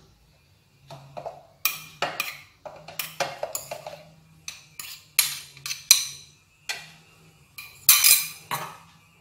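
Metal spoon scraping and clinking against a ceramic bowl as mashed purple sweet potato is scooped out: a string of irregular short scrapes and knocks, the loudest about eight seconds in.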